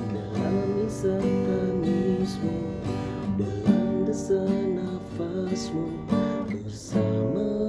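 Acoustic guitar strumming chords in an instrumental passage between sung lines, with a wavering melody line over the chords.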